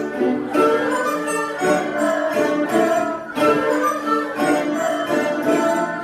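A Chinese folk ensemble led by erhu two-stringed fiddles, joined by other traditional instruments, playing a melody together.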